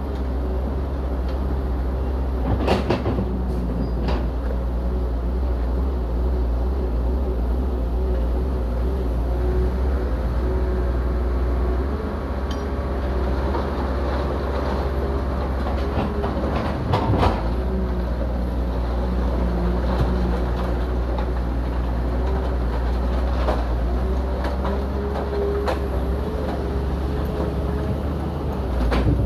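Heavy earth-moving machine's diesel engine running steadily, with a wavering whine over the low hum. A few sharp clanks come a few seconds in, at about the middle and near the end.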